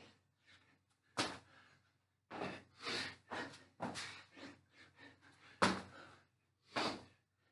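Burpees: thumps of hands and feet landing on a floor, the sharpest about a second in and just before the six-second mark, with hard breaths between them.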